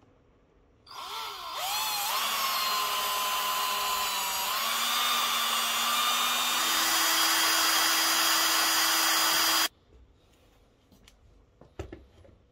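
Power drill spinning a mixing paddle in a plastic bucket of epoxy resin: the motor whine rises as it spins up about a second in, runs steadily for about nine seconds, then cuts off suddenly. A light knock or two follows near the end as the paddle is lifted out.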